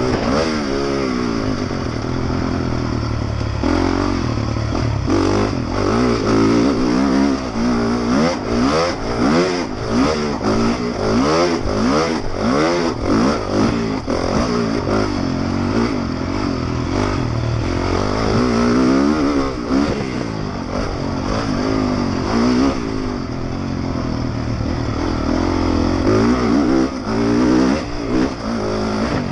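Honda motocross bike's engine under hard racing throttle, its pitch climbing and dropping over and over as the throttle is opened and shut and gears change, with short knocks and rattles mostly through the middle. Heard close up from a helmet camera, with wind noise.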